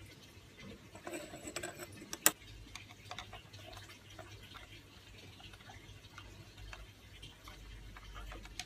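Faint handling sounds: small scattered clicks and taps, with one sharp click about two seconds in, over a faint low hum.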